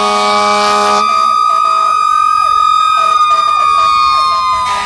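Several fire engine sirens sounding at once: one holds a high wail that slowly rises and then falls away near the end, while another yelps rapidly up and down. A steady horn blast cuts off about a second in.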